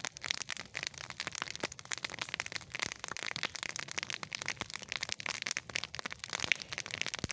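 Small campfire of thin spruce saplings crackling: a steady, irregular stream of sharp pops and snaps.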